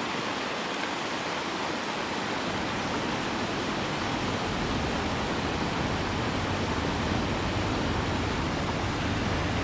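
Steady rushing noise like heavy rain or falling water, with a low rumble coming in about halfway through.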